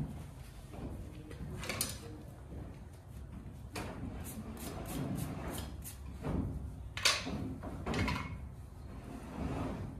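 A farrier's tool scraping on a horse's hoof held up off the ground: a series of irregular strokes, the loudest about seven and eight seconds in.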